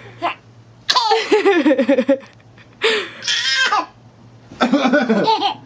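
Laughter in three bursts of about a second each, the pitch bouncing up and down through each burst.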